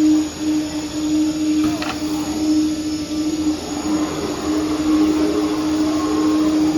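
Multi-head CNC router's spindles running with a steady high whine while cutting MDF.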